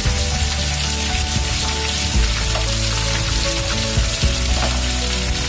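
Chopped onions sizzling as they fry in hot oil in a pan, a steady crackling hiss, under background music with held low notes.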